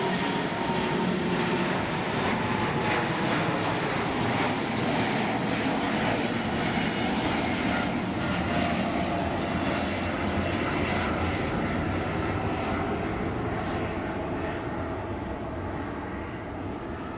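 Boeing 787-9's jet engines, a steady noise of a passing airliner that begins to fade over the last few seconds.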